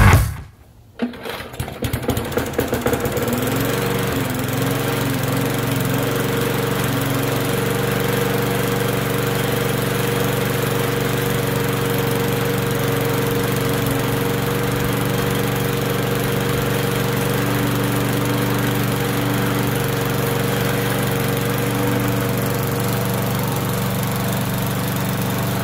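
Push lawn mower's small single-cylinder engine catching about a second in and speeding up unevenly for a couple of seconds, then running at a steady speed on its freshly cleaned carburetor.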